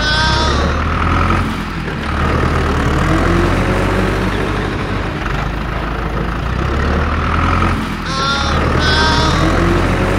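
A looped vehicle engine sound, a steady low drone, with a pattern of high warbling chirps and gliding tones that repeats about every eight seconds.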